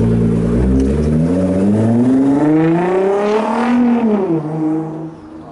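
Nissan GT-R's twin-turbo V6 accelerating hard away, its revs climbing steadily for about three and a half seconds, then dropping as it lifts off and fading as the car draws away.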